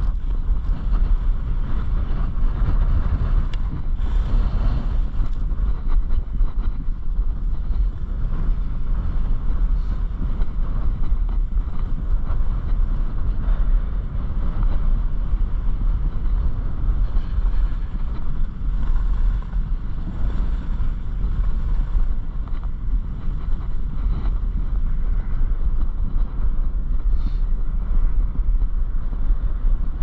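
Wind buffeting the microphone: a steady, dense low rumble.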